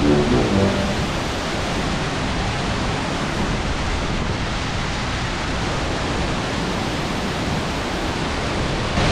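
Waterfall at close range: a steady, even rush of falling water. A few notes of background music end within the first second.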